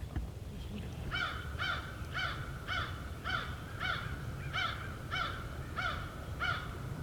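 Turkey yelping: a long, even series of short, arched yelps, about two a second, starting about a second in.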